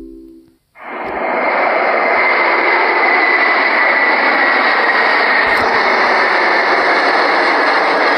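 The last tones of a bell-like chime die away. About a second in, steady jet airliner cabin noise fades in quickly and holds: an even rushing of engines and air with a faint high tone.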